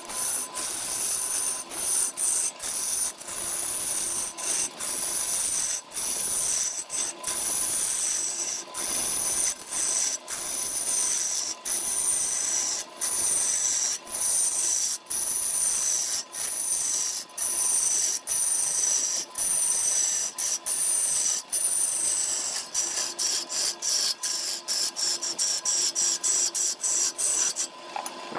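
Turning tool cutting into a spinning wooden vase blank on a lathe: a steady, hissing scrape broken by many short gaps, with a faint steady tone underneath. The cutting stops near the end.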